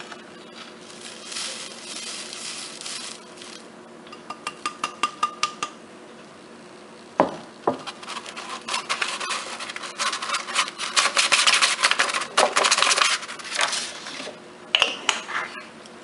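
A rolled paper funnel tapped and rubbed in the mouth of a small glass jar as powdered stevia leaf is worked through it. A run of quick glassy taps comes about four seconds in, then a knock, then a longer, louder stretch of rapid scratchy rubbing.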